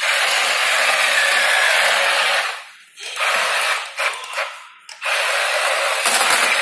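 Battery-powered RC toy tank driving, its small electric drive motors and gears running in three spurts, with short breaks about two and a half and about five seconds in.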